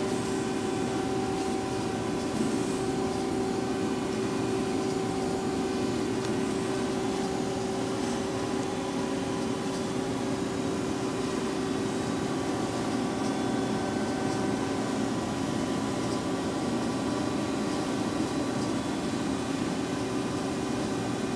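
Lucas horizontal boring mill's spindle running steadily at about 1200 RPM: an even mechanical hum with several steady whine tones from the drive.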